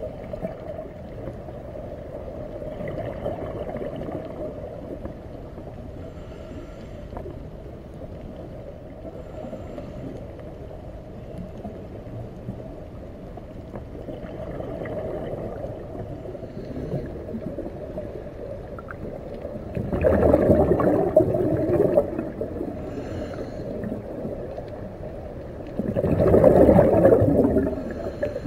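Scuba diver breathing through a regulator, heard underwater: a steady low underwater rumble, with two loud rushes of exhaled bubbles about six seconds apart near the end.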